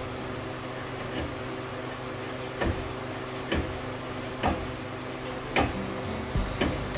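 Sharp clicks about a second apart, starting a couple of seconds in, from something being cut with a hand tool during engine work, over a steady low hum.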